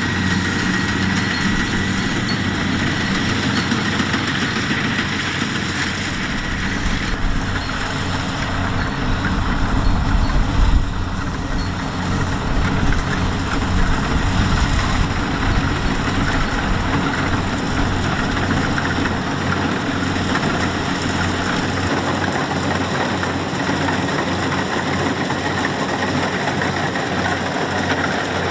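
Kubota DC-70X rice combine harvester's diesel engine and threshing machinery running steadily, with a brief louder low rumble about ten seconds in.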